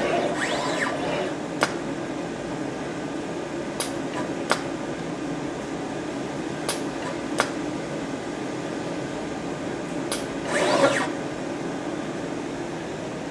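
Japan Unix desktop soldering robot running a soldering cycle: a steady motor whir with several sharp clicks at uneven intervals, and a brief rising-and-falling motor whine near the end as an axis moves.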